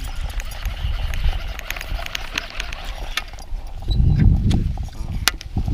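Wind rumbling on the microphone in an open aluminium boat, with scattered light clicks and knocks, and a heavier rumble about four seconds in.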